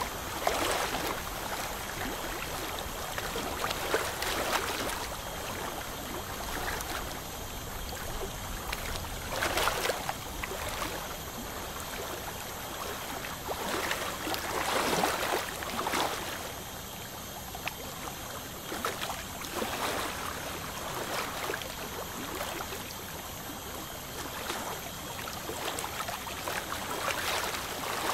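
Dental suction and the water spray of an ultrasonic scaler, a steady watery hiss and gurgle that swells now and then, while tartar is scaled off the teeth.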